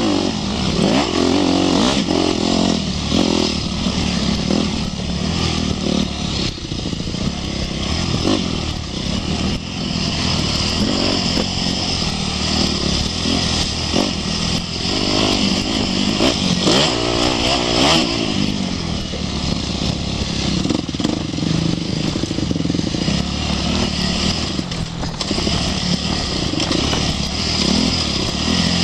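Yamaha 250cc four-stroke single-cylinder dirt bike engine running while riding a rough trail, its pitch rising and falling with the throttle under a constant rush of noise.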